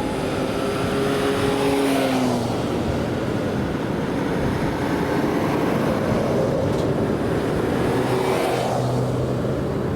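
Road vehicles passing at speed, engines and tyre noise. One engine note drops in pitch and fades about two seconds in, and another comes up near the end.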